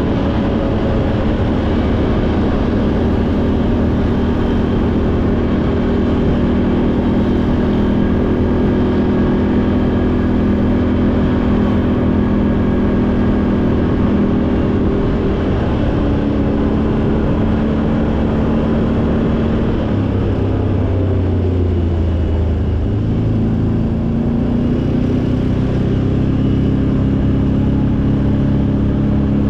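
ATV engine running under way, a steady mechanical drone whose pitch dips about two-thirds of the way through and climbs again near the end.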